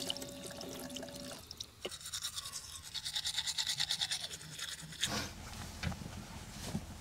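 Toothbrush scrubbing teeth in quick, even strokes from about two seconds in until just past four seconds, after a few light clinks of cutlery on dishes. Near the end there is rustling and shuffling of clothing.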